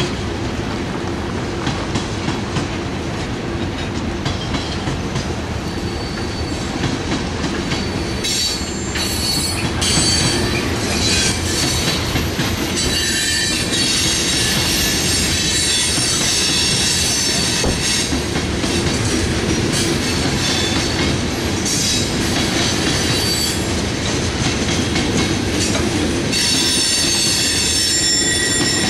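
BNSF coal train's hopper cars rolling past: a steady rumble of steel wheels on rail with clickety-clack over the joints. High-pitched wheel squeal comes and goes from about eight seconds in, strongest in the middle and near the end.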